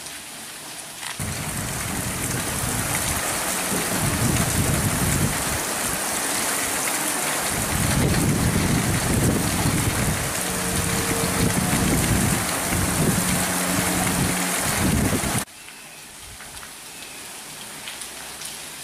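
Heavy monsoon rain pouring, with a deep rumble that surges and fades through most of it. It turns suddenly louder about a second in, then drops abruptly near the end to a quieter, steady patter of rain.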